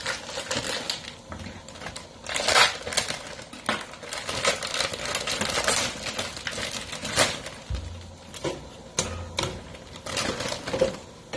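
Plastic bag of spinach noodles crinkling and rustling as it is handled and opened, an irregular run of crackles and clicks.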